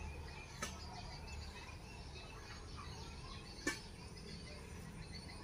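Faint outdoor ambience of bird chirps and insect calls, with two short clicks: one under a second in and a louder one about two thirds through.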